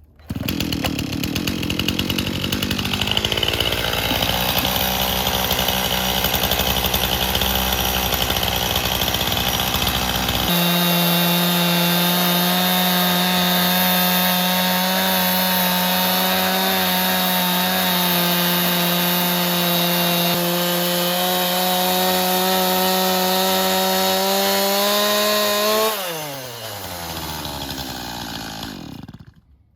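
Chainsaw on an Alaskan chainsaw mill running at full throttle, ripping a log lengthwise. About ten seconds in, the sound changes abruptly to a steadier pitched whine. Near the end the engine pitch falls and the saw winds down as the throttle is let off.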